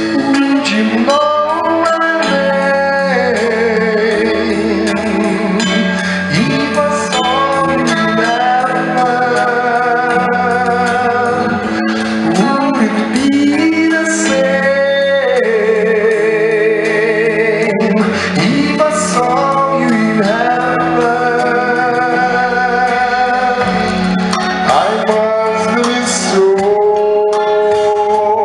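A song: a voice sings a melody with long held, wavering notes over instrumental accompaniment.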